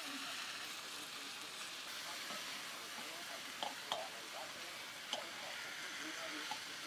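Chopped potatoes sizzling in oil in a wok over a wood fire, a steady hiss. About halfway through, a ladle stirring them clacks and scrapes against the metal pan a few times.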